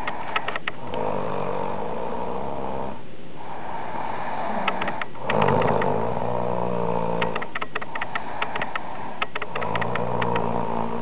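A person snoring loudly: three long, rasping snores about four seconds apart, with a quick ticking between them.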